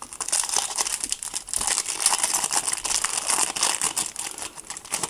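Foil wrapper of a Topps Match Attax trading card booster pack crinkling and tearing as it is ripped open by hand, a dense crackle that runs until just before the end.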